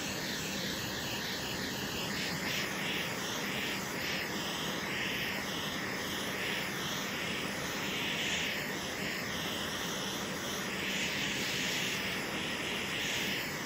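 ZEBRE refillable butane culinary torch burning steadily on its medium setting, a continuous hissing flame. The torch is being played over sugar on a crème brûlée, melting and caramelizing it.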